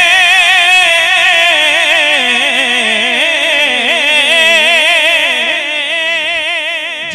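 Male naat reciter singing one long held, melismatic phrase with a wide, constant vibrato, unaccompanied, into a microphone. It eases slightly in loudness toward the end.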